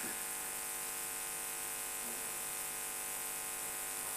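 Steady electrical buzz with a constant high hiss: mains hum from the hall's sound system, with no speech over it.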